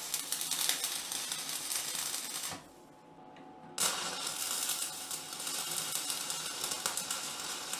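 Wire-feed arc welder laying plug welds on thin steel, a steady dense crackle and sizzle. The arc stops for about a second between two welds, in the middle of the stretch.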